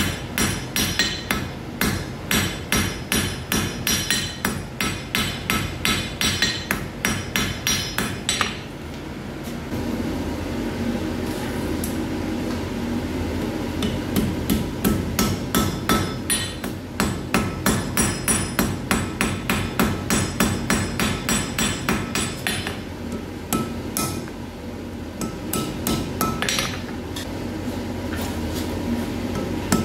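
Blacksmith's hammer striking a hot iron bar on an anvil in quick, even blows, about two to three a second, in runs broken by pauses while the bar is turned and bent.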